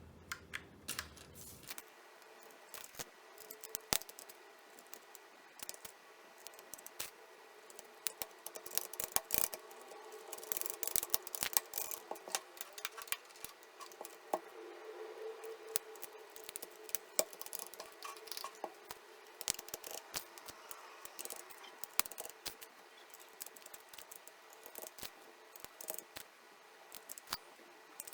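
Irregular small plastic clicks and light scraping as the parts of a Keychron K1 keyboard are handled during cleaning, busiest partway through.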